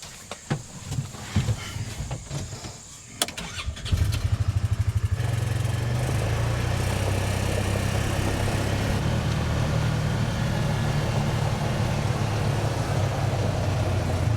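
A few scattered clicks and knocks, then about four seconds in a Polaris Ranger 500 side-by-side's engine cranks for about a second, catches and settles into a steady idle.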